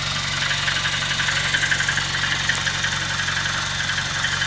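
VAZ 2109 engine idling cold, with a rapid, even clatter of the valve tappets ('стаканчики') in the cylinder head. The tappet bores are worn, and the owner puts the rattle down to clearances not yet closed up on a cold engine, expecting it to fade once warm.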